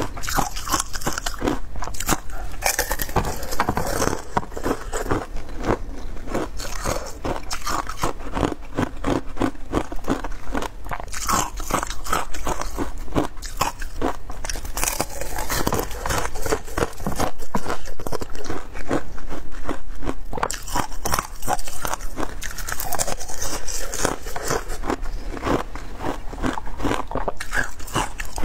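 Close-miked biting and chewing of ice with pomegranate seeds frozen in it: a dense, continuous run of crackly crunches as the ice breaks between the teeth.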